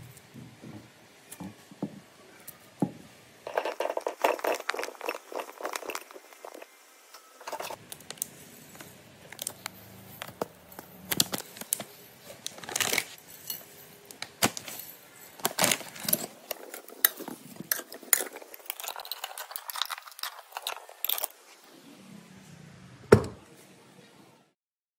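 Plum pieces knocking and rattling against a glass bowl: bursts of irregular clinks and scrapes, with one sharp knock near the end.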